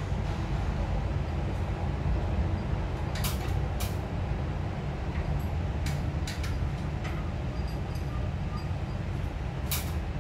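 A steady low rumble runs throughout, with several sharp clicks and knocks from handwork on the overhead wooden ceiling frame, the loudest about three seconds in and near the end.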